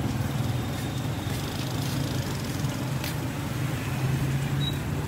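Steady low hum of an idling engine amid street traffic noise, with a faint click about three seconds in.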